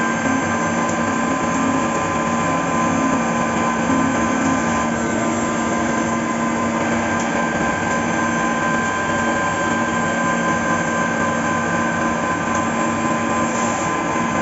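Fagima Jazz M five-axis CNC milling machine running while machining a part: a steady hiss of cutting with a constant whine at a few fixed pitches.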